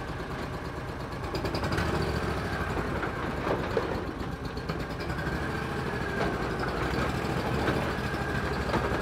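Duck boat's motor idling steadily as it warms up from a cold start.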